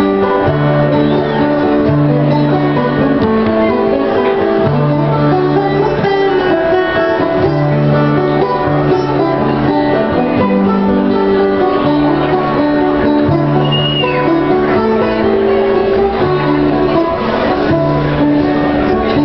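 Live acoustic band playing a song's instrumental introduction: strummed acoustic guitar over a repeating pattern of low bass notes, with no singing yet.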